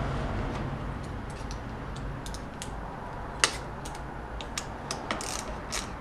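Irregular light metallic clicks and ticks of a hand tool working the bolt and nut of a motorcycle exhaust hanger bracket, with one sharper click about three and a half seconds in.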